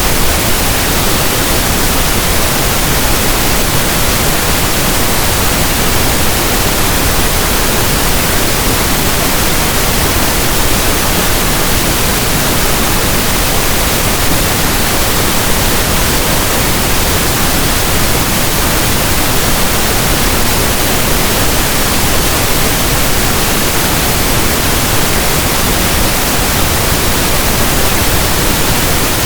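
Generated pink noise: a steady, even hiss like a radio tuned between stations, unchanging throughout.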